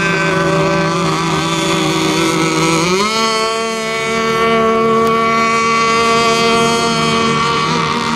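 Radio-controlled racing boats' small engines running at high revs with a steady whine. About three seconds in the pitch climbs sharply, then holds.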